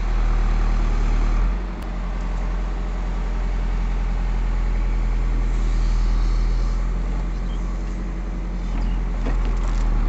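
Diesel engine of a Caterpillar digger running steadily as it works the arm to pull old wooden bridge piles out of the mud. About a second and a half in, the engine note dips briefly and shifts, then holds steady.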